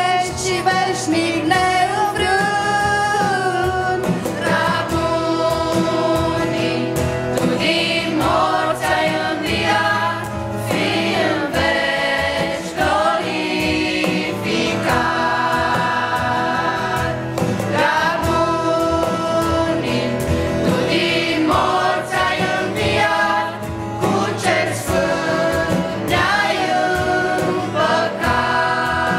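Choir of children and young people singing a Romanian Christian song into microphones, in phrases of long held notes.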